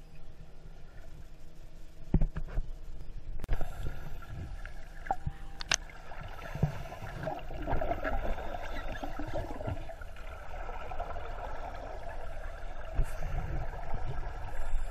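Muffled underwater sound of scuba divers breathing through their regulators: exhaled bubbles gurgling, strongest in the middle, over a steady low rumble. A few sharp clicks and knocks come in the first half.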